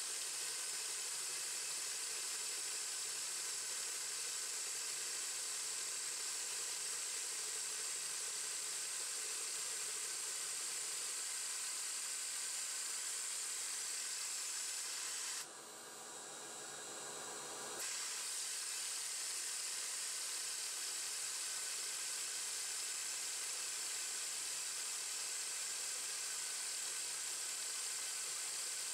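CNC-converted 9x20 benchtop metal lathe running with its chuck and workpiece spinning: a steady hiss over a faint low hum. The sound drops away for about two seconds in the middle, then comes back.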